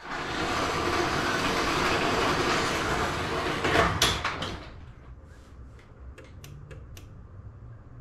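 LiftMaster garage door opener running and the door rolling along its tracks for about four and a half seconds, ending in a few clunks as it stops. A low hum and light ticks follow.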